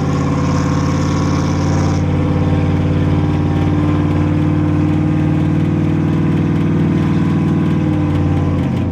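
Steady drone of a truck driving at speed, heard from inside the cab, with the vibration the driver hears when going fast. He thinks it comes from a badly dented rim or a flat tire. The pitch drops slightly near the end.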